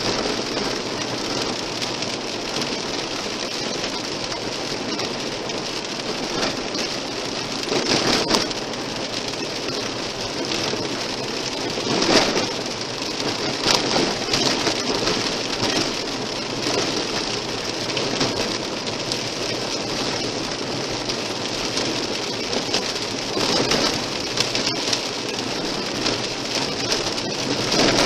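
Car tyres rolling over a gravel road, heard from inside the car as a steady rushing, crackling noise, with a few short louder swells.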